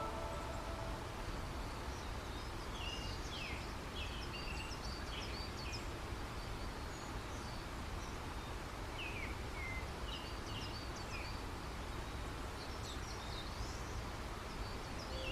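Small songbirds chirping and twittering in scattered short phrases over a steady, even background rush of outdoor noise.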